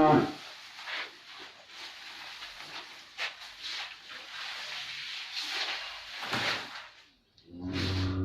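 Irregular rustling and scuffing noises with a few sharp clicks, then a dairy cow starts to moo near the end.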